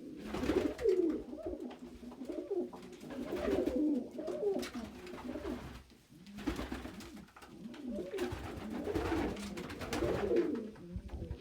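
Domestic pigeons cooing, several overlapping repeated coos in a small indoor loft, as birds squabble over a nest box.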